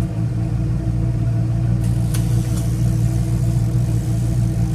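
Boat engine running steadily at trolling speed: an even, low-pitched hum that holds constant. A few light ticks come about two seconds in.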